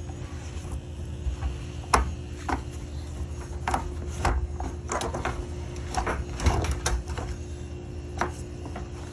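Irregular light clicks and knocks from hands handling the fuel pump module and its lines at the top of the fuel tank, over a steady low hum.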